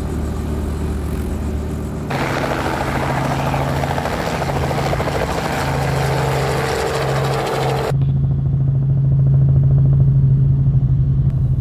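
Robinson R44 helicopter running in flight, with a steady engine note and fast rotor beat. The sound changes abruptly about two seconds in and again about eight seconds in. In the last part it turns duller, as heard from inside the cabin.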